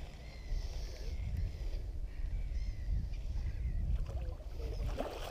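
Wind buffeting the microphone as an uneven low rumble, with birds calling faintly in short chirps.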